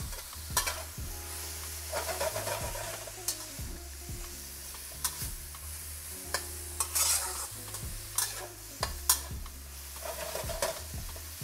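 Broccoli and carrots sizzling in a hot wok as a metal spoon stirs and tosses them, with sharp clinks and scrapes of the spoon against the pan every second or so.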